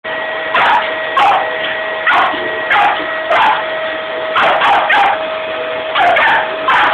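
Small white terrier barking repeatedly, about a dozen sharp barks, at a running vacuum cleaner, whose motor gives a steady whine underneath.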